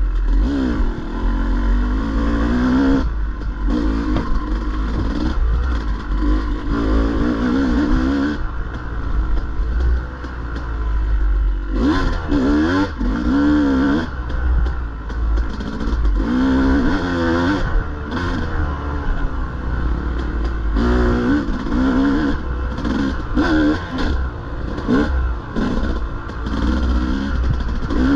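Dirt bike engine revving up and down under load. Its pitch rises and falls every second or two as the throttle is worked, over a constant low rumble.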